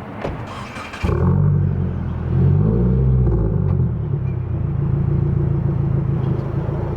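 A 2022 Subaru WRX's engine starting about a second in after a few clicks, then running with one short rev that rises and falls before settling to a steady idle.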